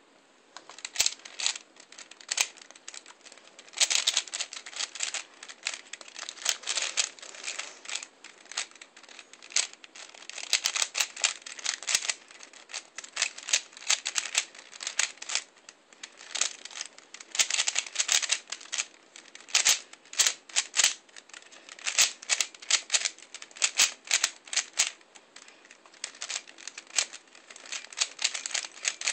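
A 3x3 Rubik's cube being turned rapidly by hand during a speedsolve: a stream of plastic clicks and clacks in quick, irregular flurries with brief pauses between them.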